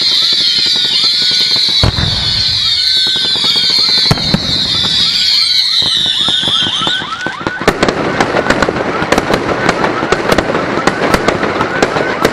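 Aerial fireworks going off: many short rising whistles over a shrill high whistle that slowly drops in pitch, with a couple of deep booms. About seven seconds in the whistling stops and rapid crackling bangs take over.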